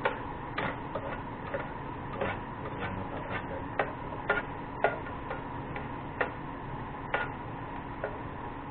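Sharp light knocks of a kitchen utensil while garlic is being cooked, coming about twice a second at a slightly uneven pace, over a steady hiss.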